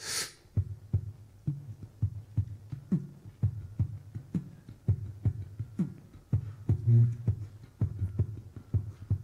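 Beatboxing into a handheld microphone: a steady vocal rhythm of deep kick-drum thumps and sharp clicks, opening with a brief hissing cymbal sound and with a few short falling tones mixed in.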